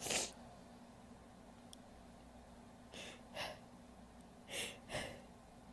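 A woman's short, quiet breaths between sneezes: a brief one at the start, then two pairs of quick breaths in the second half, building toward the next sneeze.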